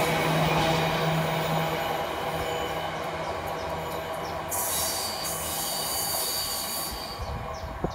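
Freight train's container flat wagons, mostly empty, rolling away on curved track: a rumble of wheels on rail with a steady squeal of wheel flanges, fading as the last wagon goes away.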